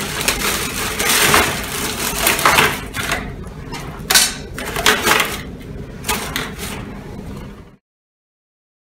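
Thin plastic bag crinkling and rustling as white PVC pipes and elbows are handled and pulled out of it, with light knocks of the plastic pipes against each other. It cuts off abruptly near the end.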